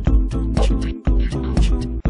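Background music with a steady beat and heavy bass, about two beats a second.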